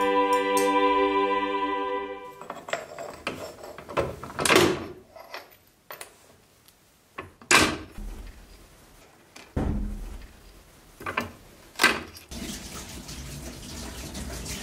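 A sustained music chord that cuts off about two seconds in, then five sharp cracks spread over the next eight seconds as a bench-mounted mosaic cutter's blade snaps pieces of mosaic glass.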